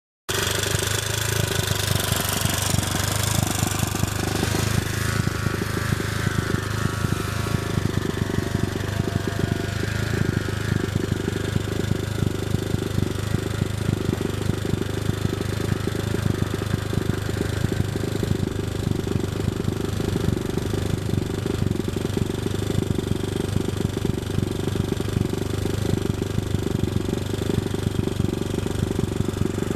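ATV engine running with a steady, rapid low pulsing, starting abruptly just into the clip; a higher engine note falls in pitch between about five and twelve seconds in.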